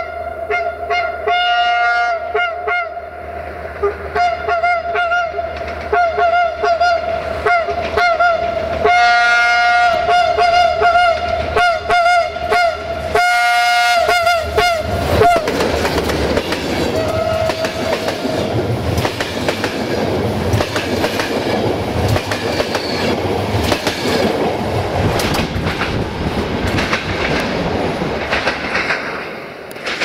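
Diesel locomotive 64-0974-7's air horns played in a long show of short and held blasts, with pitch wavering between notes. About fifteen seconds in, the horn stops, apart from one more short note, and the passenger coaches rush past close by, their wheels clattering over the rail joints.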